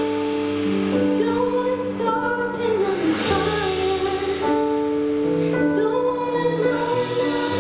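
A woman sings a slow ballad live with vibrato, accompanied by sustained piano chords and bass guitar.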